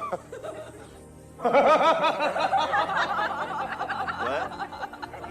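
Background music with a burst of rapid, high-pitched laughter that starts about a second and a half in and runs for about three seconds.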